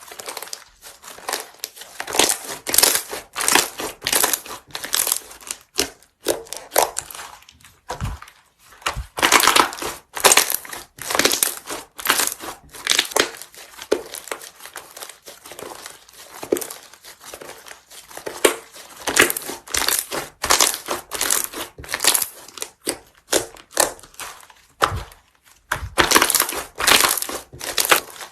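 Crunchy slime being squeezed and pressed, crackling with many small pops in repeated bunches, with short pauses between squeezes.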